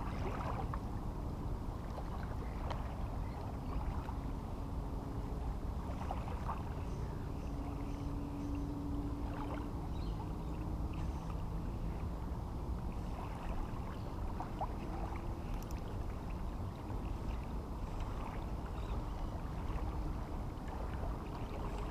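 Steady low rumble of water lapping at the river shore, with a few faint clicks and a faint hum briefly in the middle.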